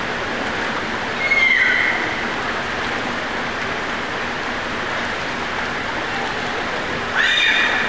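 Steady hiss of water splashing and churning in an echoing indoor swimming pool. Two short high-pitched cries cut through it: one about a second in, falling in pitch, and one near the end.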